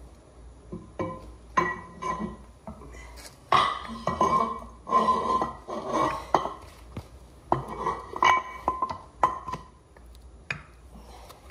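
Long metal seal-driver tube clanking and ringing against a steel axle shaft in a run of irregular knocks, as it is worked along the shaft to drive an axle seal into place.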